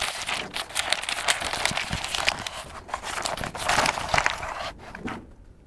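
Sheets of newspaper rustling and crinkling as they are handled and unfolded, dying away near the end.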